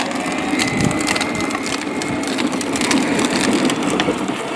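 Wheels rolling and crunching over rough ground with a constant crackle, over a steady hum.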